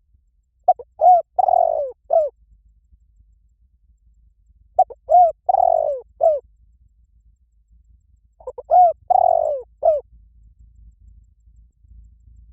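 Spotted dove cooing: three phrases about four seconds apart, each a quick run of four or five short, arched coos.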